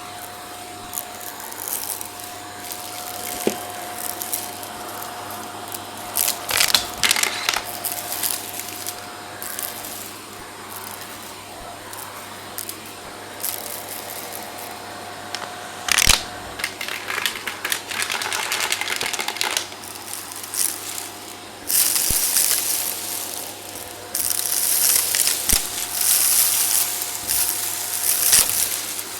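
Vacuum cleaner running with a steady whine while its brush works over the stairs, broken by repeated stretches of crunchy, crackling pickup as debris is sucked in, the longest in the last several seconds.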